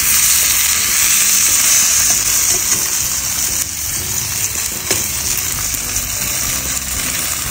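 Boiled mantı dumplings frying in butter in a frying pan, a steady sizzle, with a few light clicks.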